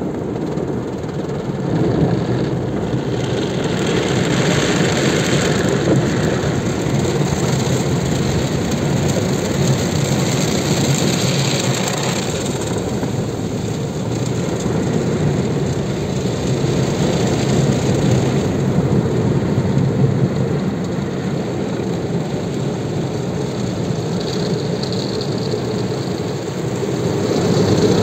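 Automatic car wash heard from inside the car: a steady rush of water spray beating on the windshield and body, with the wash machinery running underneath. The spray hiss swells louder several times as the jets pass over.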